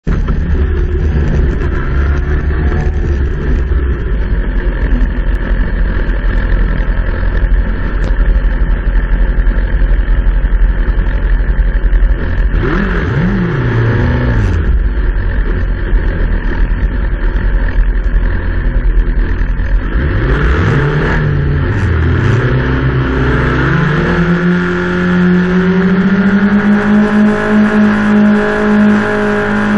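Racing motorcycle engines on the start grid, heard from the bike: running low with quick throttle blips whose pitch rises and falls, then, from about three-quarters of the way in, held at raised revs with the note slowly climbing, ready for the start.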